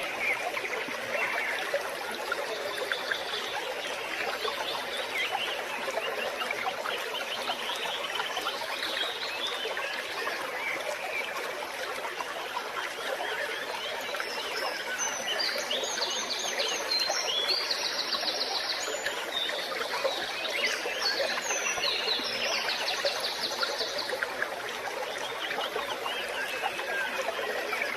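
Forest stream flowing steadily, a continuous rush and trickle of water, with birds chirping and trilling over it through the middle stretch.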